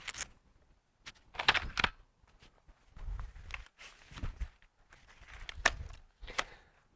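Handling noises of a metal table mount and camp table being fitted: a string of separate knocks, sharp clicks and rustles, about half a dozen over several seconds.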